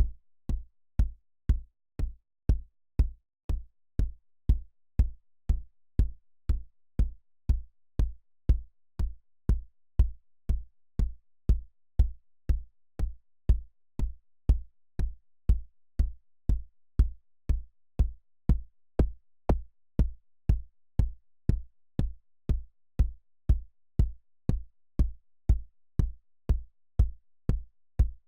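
Synthesized kick drum from Reason's Subtractor synthesizer, looped about two beats a second: each hit is a short, deep low thump with a faint click on top.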